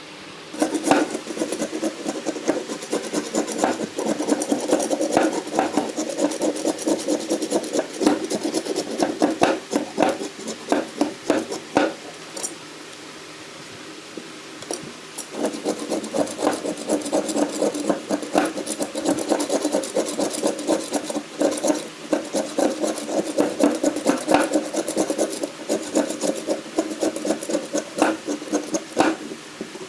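Fast back-and-forth scraping strokes of hand abrasion, a tool rubbed over the work. The strokes pause for about two seconds near the middle, then carry on.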